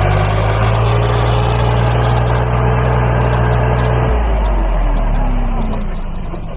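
Swaraj 744 XT tractor's three-cylinder diesel engine running hard under heavy load, pulling a loaded sand trolley with its rear wheels digging into soft sand. About four seconds in, the engine note drops as the revs fall.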